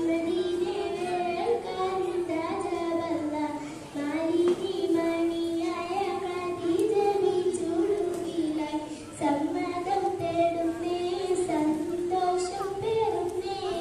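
A young girl singing a Mappilappattu (Malayalam Mappila folk song) solo into a microphone, in long melodic phrases with brief breaths about four and nine seconds in.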